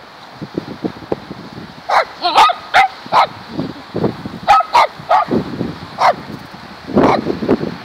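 Small dog barking repeatedly in short, high-pitched barks, in quick bunches of two to four, starting about two seconds in.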